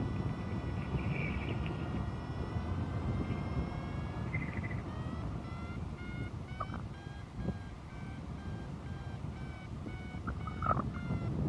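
Paragliding variometer sounding over steady wind rush on the microphone: a steady electronic tone that, from about halfway, breaks into short repeated beeps edging up in pitch, the variometer's signal that the glider is climbing in lift.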